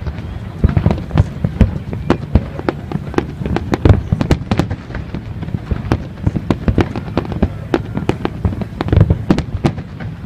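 Fireworks going off in a dense, irregular string of bangs and crackles, several a second, over a steady low rumble.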